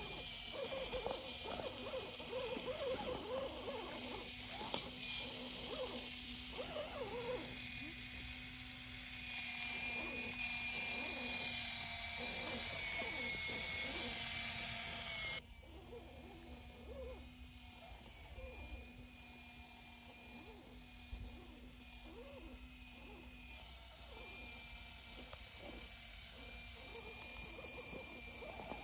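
The small electric motor and gears of an HB ZP1001 Unbounded Pioneer RC crawler whine steadily as it crawls, with light crunches of its tyres on dirt and stones. About halfway through the sound cuts abruptly to a quieter level.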